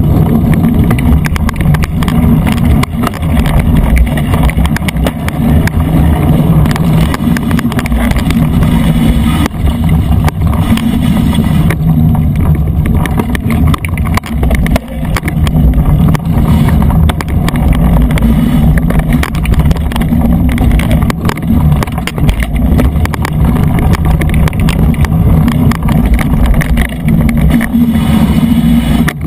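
Mountain bike riding a dirt trail, heard through the rider's action camera: steady wind buffeting and rumble from the tyres on the ground, with frequent small rattles and knocks as the bike rolls over bumps.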